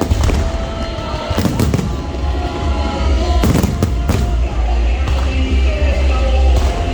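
Aerial fireworks going off overhead, several sharp bangs and crackles, the loudest about a second and a half in and again around three and a half to four seconds in, over loud music with a heavy low end.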